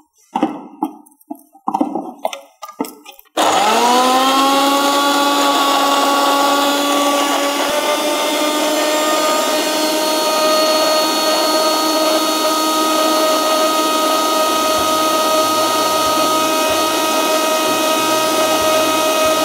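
Prestige Ultra Pro mixer grinder running with its juicer jar, grinding mint leaves, ginger and pepper with water. A few knocks as the jar is set and locked on the base, then the motor starts about three seconds in with a quickly rising whine and holds steady.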